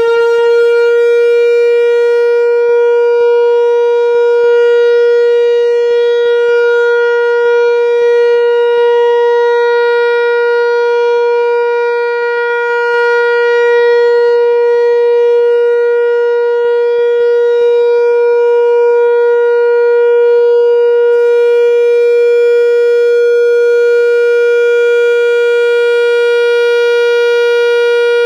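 Whelen 4004 electronic tornado warning siren sounding its steady alert tone on a scheduled test. It holds one pitch with a stack of overtones, loud and unbroken, its level wavering slightly.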